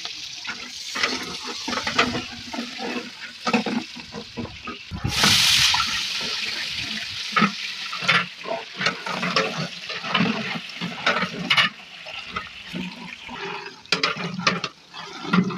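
Sliced onions frying in hot oil in a large aluminium cooking pot: a steady sizzle with ladle scrapes and clicks against the pot, and a louder rush of sizzling about five seconds in.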